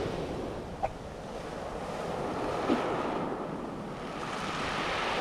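Sea waves breaking and washing up a shingle beach of rounded pebbles, the surf rising and falling, with wind on the microphone. Two brief short sounds stand out, about a second in and again near the three-second mark.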